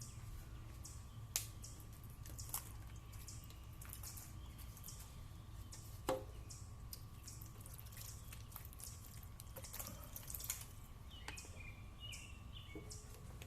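Water dripping and splashing in many small irregular ticks as the headlight lenses are rinsed off. A few sharper knocks stand out, the loudest about six seconds in.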